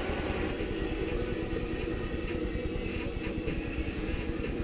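Electric arc welding on a steel pedestal tube: a steady, unbroken crackle of the arc.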